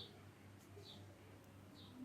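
Near silence: a steady low hum with a faint, short high chirp repeating about once a second.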